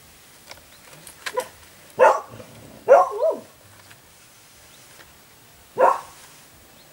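A dog barking: a few short barks spaced a second or more apart, one near the middle drawn out into a double bark.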